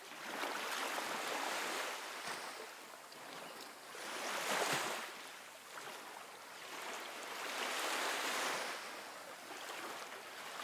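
Ocean waves surging and receding, a rushing wash that swells and fades every few seconds.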